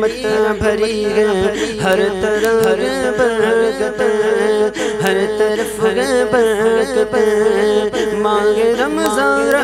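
A male voice sings a naat, an Urdu devotional song, in long wavering ornamented lines over a steady drone.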